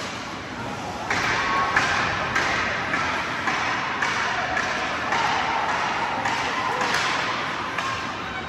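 Indoor ice hockey game: spectators' voices and calls, growing louder about a second in, over a string of sharp clacks and knocks from sticks, puck and skates on the ice, about two a second.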